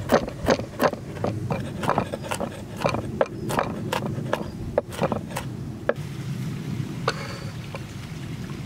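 A large curved-bladed knife chopping garlic on a wooden cutting board, a steady run of quick knocks about three a second that stops about six seconds in. A couple of lighter knocks follow as the minced garlic is gathered into a wooden bowl.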